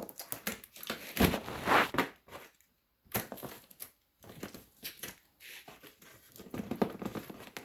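Cardboard box and plastic packaging being handled and worked open: irregular crinkling, crushing and tearing, loudest about a second and a half in, with short pauses near three and four seconds.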